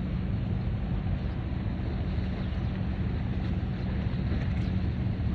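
Wind rumbling on the microphone over choppy harbour water, with a faint steady low hum underneath.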